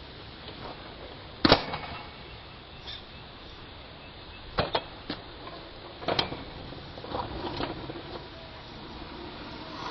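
Kick scooter clattering on asphalt: sharp clacks of the deck and wheels hitting the road, the loudest about a second and a half in, then a couple more around the middle and a few smaller knocks later, over a steady background hiss.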